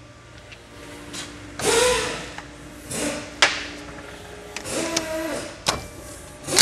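Cordless power tool whirring in three short bursts, the first the loudest, with a few sharp clicks between, as the top nut of a rally shock is run off. The spring's pressure has been taken off by the compressor, so the nut can be undone.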